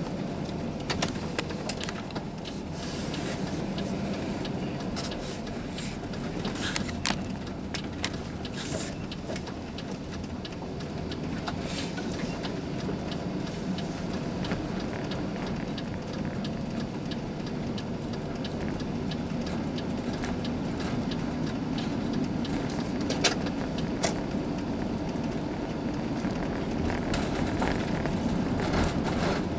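Car driving along a paved road, heard from inside the cabin: a steady rumble of engine and tyres, with a few short clicks and rattles, the loudest about two-thirds of the way through.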